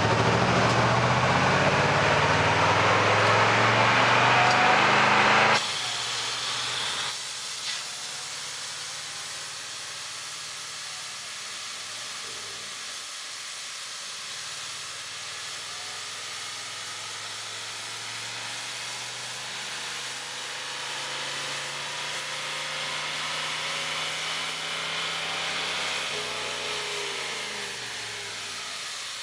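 Turbocharged Pontiac Trans Am's 301 V8 running hard on a chassis dyno, its rear tyres spinning the rollers. About five and a half seconds in the power cuts off suddenly and the engine and rollers run on much more quietly, with the engine pitch falling near the end as it winds down.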